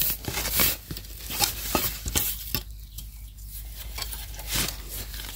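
Dry, sandy soil being scraped and dug away from the base of a wild bamboo shoot with a hand digging tool: irregular scrapes and crunches, busiest in the first second or so.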